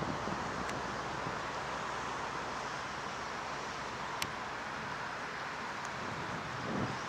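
A single sharp click of a putter striking a golf ball about four seconds in, over a steady background hiss, with a low gust of wind on the microphone near the end.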